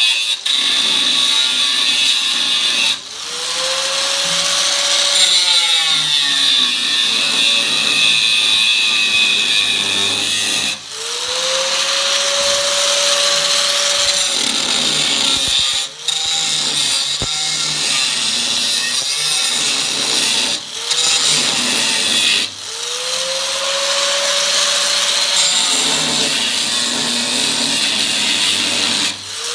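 Handheld power tool working on metal, loud, cutting out and restarting several times; at each restart its motor spins up with a rising whine that levels off.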